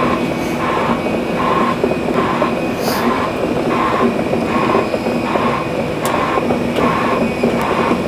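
Klein KTP220 concrete pump's engine running steadily with a repeating electronic beep about every three-quarters of a second, typical of the machine's travel warning while its tracks are being driven.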